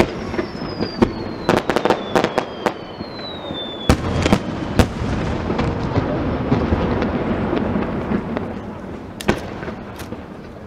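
Aerial fireworks going off: sharp bangs of bursting shells, a quick run of them between about one and a half and three seconds in, with a whistle gliding down in pitch over the first four seconds and a dense crackle through the middle.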